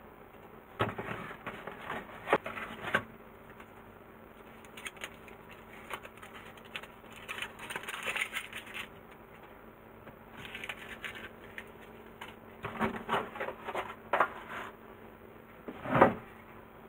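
Small handling sounds: bursts of light taps, clicks and scrapes as squares of dark chocolate are laid onto batter in paper loaf moulds. Near the end comes one louder knock as the metal baking tray is shifted.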